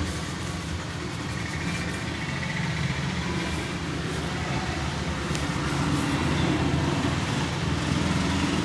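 Steady road-traffic rumble from a street, with a few faint short taps over it.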